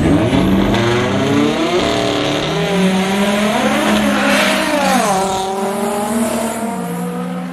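Street drag cars revving at the start line, the engine pitch rising and falling again and again, with a burst of tyre squeal about four seconds in.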